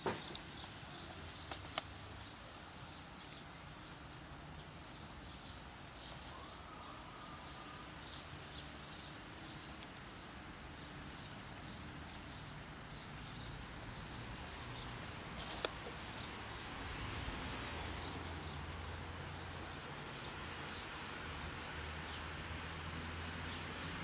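Outdoor ambience: short high-pitched chirps repeating all the way through, over a steady low rumble, with one brief gliding call about six seconds in and a few faint clicks.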